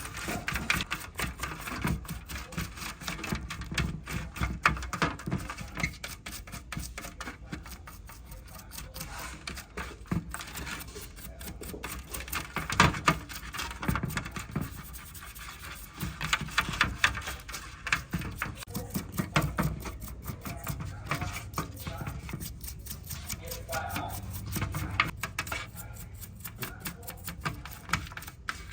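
Irregular scraping, tapping and clicking of hand work with tools, in uneven bursts.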